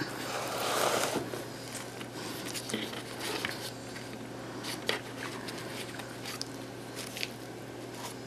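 Light handling noises on a craft table: a short rustle in the first second, then scattered soft clicks and taps as the papier-mâché coconut and paintbrush are set aside, over a steady low hum.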